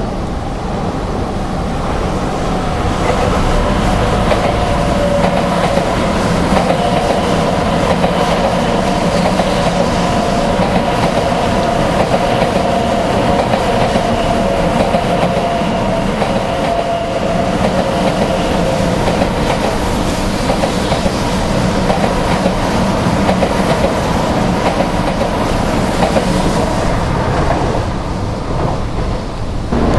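Shinkansen 500 series high-speed train running on the rails: a loud, continuous rolling noise with a steady hum of several tones through it. The noise eases slightly near the end.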